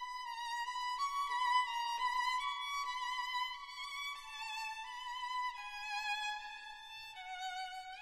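Background music: a solo violin playing a slow melody with vibrato, the line stepping downward in pitch in the second half.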